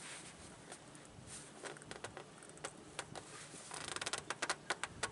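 Faint rubbing and creaking of a rag and glove on a new K&N spin-on oil filter as it is hand-tightened onto its mount, turning into a quick run of small clicks and creaks in the second half.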